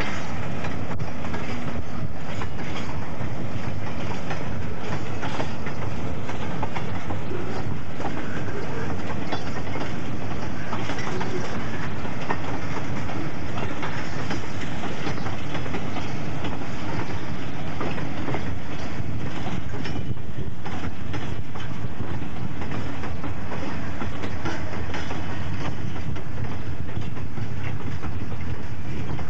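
Freight train cars rolling past with a steady clickety-clack of wheels over rail joints.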